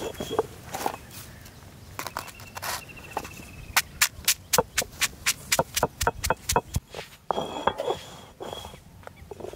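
Crisp varikki rusks cracking and crunching under a stone roller rolled over a stone grinding slab. There is a quick run of sharp cracks in the middle, at about three a second.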